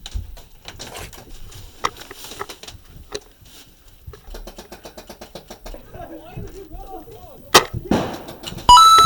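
Scattered faint clicks of airsoft fire, then one sharp, loud shot from a Novritsch SSG24 spring-powered bolt-action airsoft sniper rifle about three-quarters of the way in. A bright chime-like tone begins near the end.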